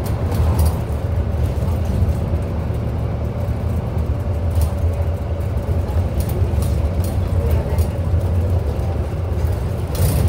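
Inside a moving Scania Enviro400 MMC double-decker bus: a steady low drone of the engine and road noise, with scattered light clicks and rattles.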